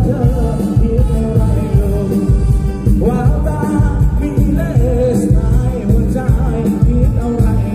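A Thai mor lam band playing live through a big outdoor sound system: a singer over a band with a heavy, steady bass beat.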